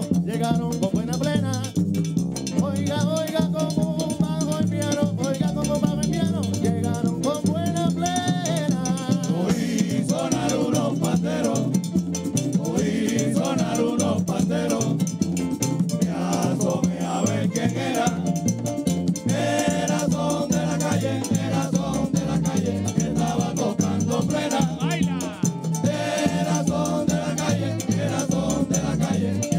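Live Puerto Rican plena: panderos beating a steady rhythm, a güiro scraping along, and voices singing.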